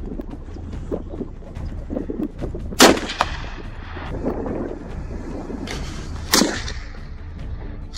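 Two rifle shots about three and a half seconds apart from a scoped hunting rifle, each a sharp crack with a short echo, over a steady low wind rumble: sighting-in shots to zero the rifle.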